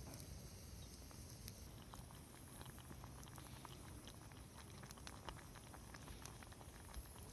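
Wood campfire crackling faintly: scattered small pops and snaps over a low, steady hiss.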